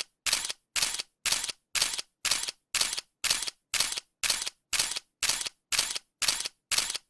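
Camera shutter clicks repeating at an even pace, a little over two a second, each a short, sharp shutter release.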